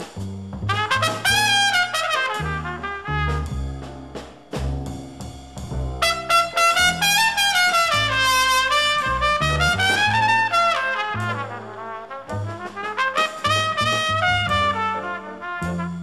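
Small-group jazz from a sextet of trumpet, alto and tenor saxophones, piano, double bass and drums: a horn lead line rises and falls over a stepping double bass line.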